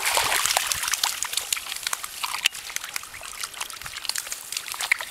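Miniature schnauzer puppies splashing and wading in shallow pond water: irregular splashes and sloshing, busiest in the first couple of seconds and then lighter.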